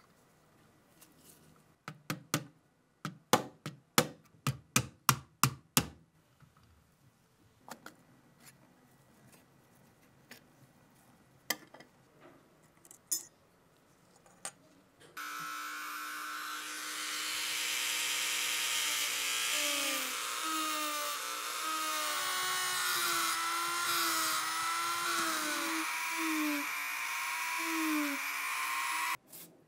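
A small rotary tool spinning a brass wire brush against the rusty metal of a Zeiss Ikon Tenax camera body: a steady, loud whirr whose pitch dips and wavers as the brush bears on the metal. It starts about halfway through and stops just before the end. Earlier comes a quick run of about ten sharp clicks.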